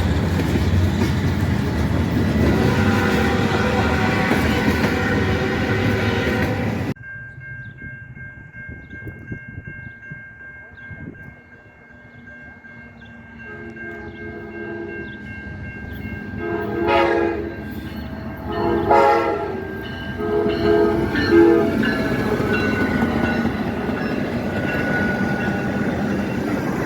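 Train horns: a loud passing train with its horn chord sounding, cut off abruptly about seven seconds in, then a quieter scene where a locomotive horn sounds several separate blasts and then holds a long blast as the train draws near.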